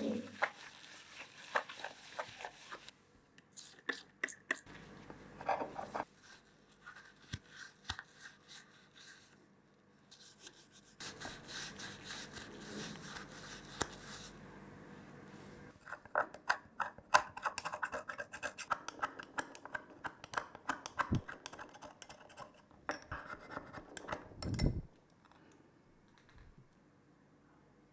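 Brass cup being scrubbed with an abrasive pad and rubbed against a stone slab: bouts of quick scratching strokes with short pauses between them. A knock near the end.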